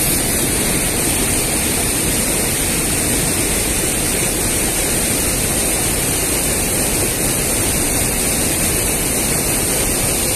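Steady rush of river water pouring over a low weir and running through the rapids below it.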